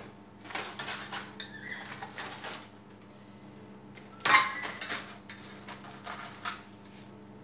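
Dishes and utensils clattering on a kitchen counter as a tart dish and bowls are handled: scattered knocks and clinks, the loudest about four seconds in.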